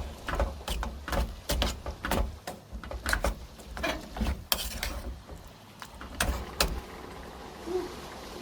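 A run of irregular knocks and clicks, about a dozen over several seconds, each with a low thud under it, thinning out near the end.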